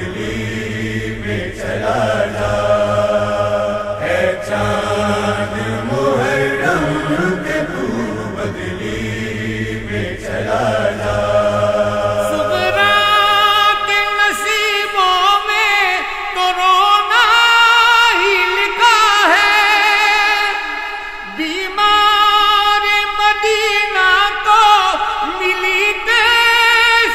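Devotional noha chanting: a chorus of male voices chants a low refrain, and about halfway through a higher voice takes over with long, wavering held notes.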